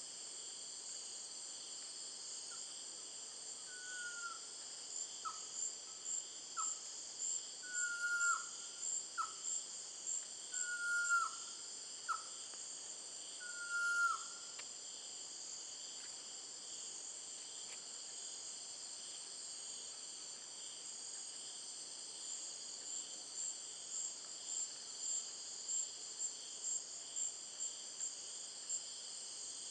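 Pavonine quetzal calling: about nine whistled notes, each falling in pitch, short slurs alternating with longer held ones, spaced a second or so apart. Under them runs a steady high chorus of insects with a pulsing trill of about three beats a second. The whistles stop about halfway through and the insects go on.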